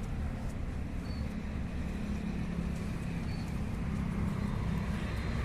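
Steady low rumble of a motor vehicle, with a faint hum that grows stronger about halfway through.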